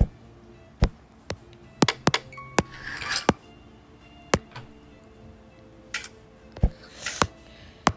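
Irregular sharp knocks and clicks, about a dozen spread unevenly, with brief rustling twice, over faint background music.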